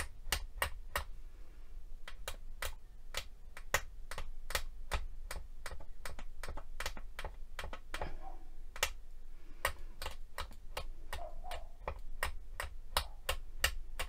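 Long flat clay blade chopping a block of polymer clay into crumbs, its edge clicking against a glass work mat in a rapid, even run of taps, about three or four a second.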